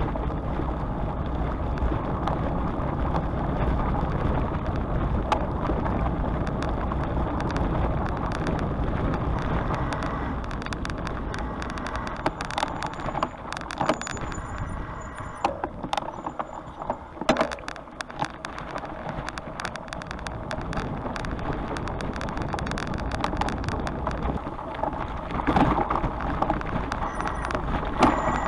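Bicycle riding: steady rumble of wind and tyre noise. About ten seconds in, a run of sharp clicks and rattles from the bike takes over, and the steady noise comes back near the end.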